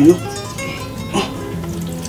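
Soft background music with plucked strings, after the last syllable of a spoken word at the start.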